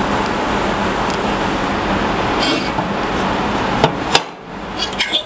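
Metal router fence parts being handled: two sharp metallic clicks about four seconds in, then a few light clinks near the end, over a steady background hiss.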